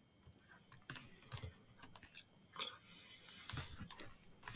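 Faint, irregular clicks and taps of a computer keyboard and mouse during desk work.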